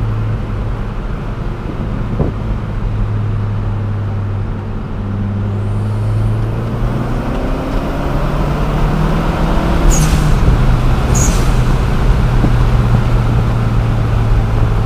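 Dodge Caliber SRT4's turbocharged 2.4-litre four-cylinder engine droning inside the cabin while cruising. Its pitch climbs and it gets louder over several seconds as the car accelerates. Two short hisses about a second apart come near the top of the climb.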